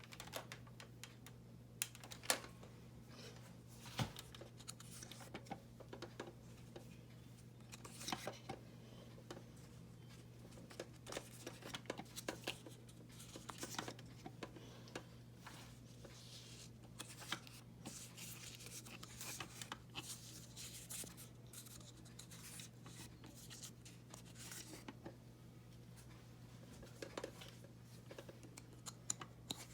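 Nerf Dart Tag Hyperfire blaster being reloaded with foam darts by hand: faint, irregular plastic clicks and scratchy handling sounds, some in quick clusters, over a steady low hum.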